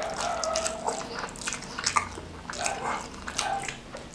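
Close-miked chewing and biting of a mouthful of spicy fried noodles and rice eaten by hand: irregular wet mouth smacks and crackles.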